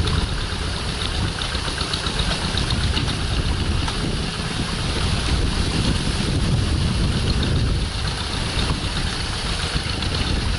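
Two-wheel hand tractor's single-cylinder diesel engine running steadily under load as it pulls a plough through wet paddy soil.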